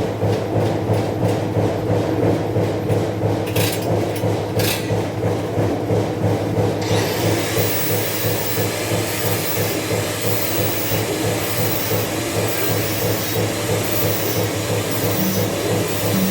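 Metalworking tool noise, rubbing and scraping, with a steady hiss that joins about seven seconds in.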